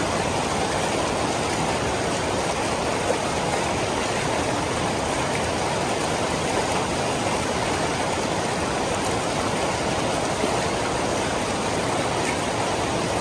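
Shallow mountain stream rushing over stones, a steady, even rush of water.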